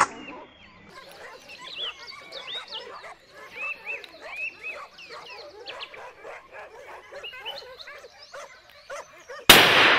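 Hunting dogs yelping and baying in a quick run of short, high calls, then a single loud rifle shot near the end that rings out with a fading echo.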